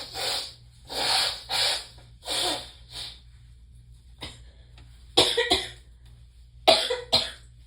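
Hard nose-blowing in about five quick forceful blasts, clearing a nose irritated by Chhinkni sneezing powder. Two sudden sharp coughs follow near the end.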